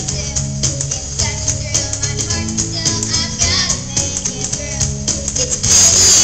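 Children's choir singing with a musical accompaniment, a bass line and light rattling percussion keeping the beat. Just before the end comes a brief loud burst of hiss.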